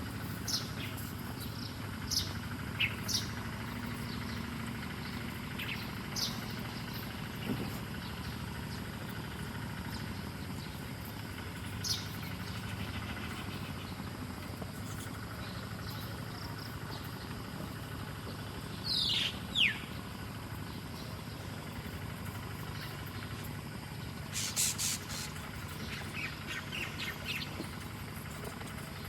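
Wild bird chirping in short, separate high notes, with two quick downward-sliding calls midway and a run of notes near the end. A steady low hum runs underneath, and a short burst of noise comes about two-thirds of the way through.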